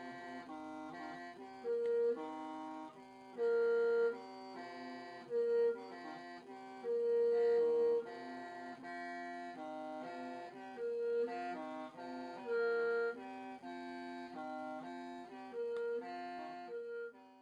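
Hmong khèn, a bamboo free-reed mouth organ, playing a tune over a steady low drone, with several notes sounding together. It stops abruptly at the end.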